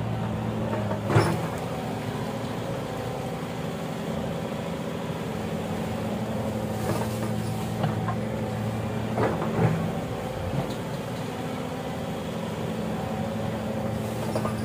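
Excavator's diesel engine running steadily, with a few sharp knocks: one about a second in and more past the middle.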